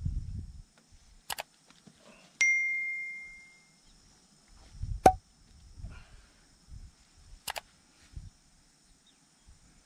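Edited-in subscribe-button sound effects: a sharp click, then a single notification-bell ding that rings and fades over about a second and a half, followed later by two more clicks. Low rumbling from wind and handling lies underneath.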